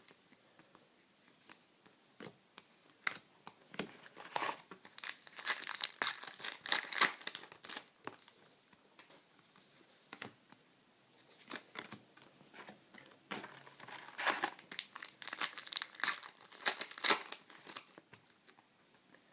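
Trading-card pack wrappers being torn open and crinkled, in two spells of tearing and rustling with lighter handling noises in between.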